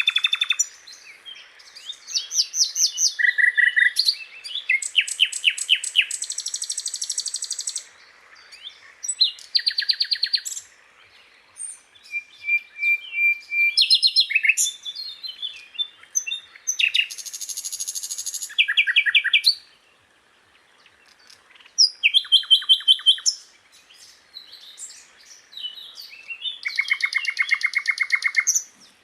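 Sikatan londo, a flycatcher, singing: a run of varied phrases of rapid repeated chirps and trills, each lasting a second or two, with short pauses between them.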